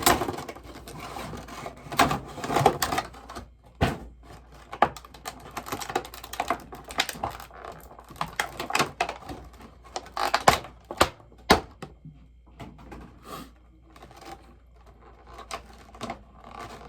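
Irregular clicks, taps and rustling from a boxed bobblehead and its packaging being handled, busiest for about twelve seconds and then fainter.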